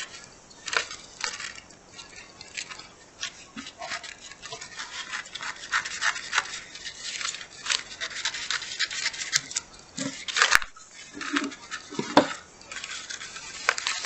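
Scissors snipping through plastic-backed peel-and-stick contact paper, a long run of short rasping cuts with the sheet rustling between them. Near the end the cut sheet crinkles as it is picked up and handled.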